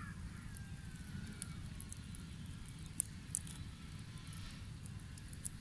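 Small charcoal fire under fish on stick skewers, with a few faint crackles from the embers over a low steady rumble. A brief high chirp sounds at the very start.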